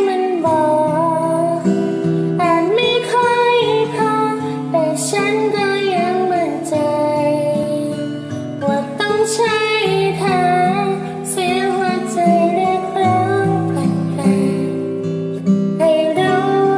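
A woman singing a Thai pop ballad over acoustic guitar accompaniment.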